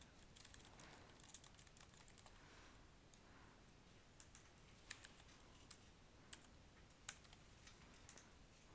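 Faint typing on a computer keyboard: scattered key clicks at an irregular pace, with short pauses between bursts.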